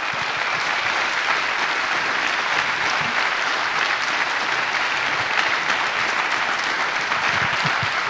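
A large audience applauding, dense steady clapping.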